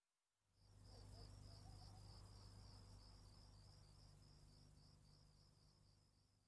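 Faint crickets chirping, a steady run of high chirps at about four a second over a low hum, starting about half a second in and fading out near the end.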